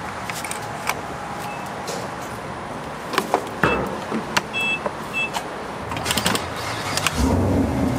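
Fuel pump dispenser beeping in short high tones several times as it takes a card, over steady outdoor background noise, with scattered clicks from handling the card and the nozzle. A low hum sets in near the end.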